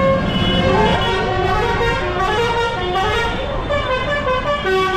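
A loud tune of short stepping notes played from a passing tractor in the procession, over the steady low running of tractor engines.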